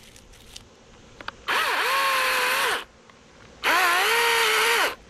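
Echo 2500T battery-powered top-handle chainsaw revved twice, each run about a second long: the electric motor's whine climbs quickly, holds steady over the chain's hiss, then winds down when the trigger is released.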